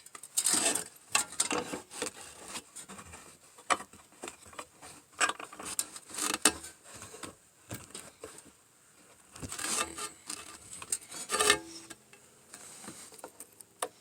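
Sheet metal being handled: irregular light knocks, clanks and scrapes as the cut pieces are moved and set against each other.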